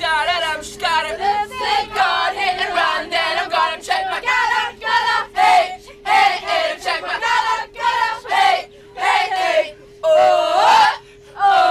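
A group of voices singing together without instruments, in quick syllables with short breaks, over a steady faint hum.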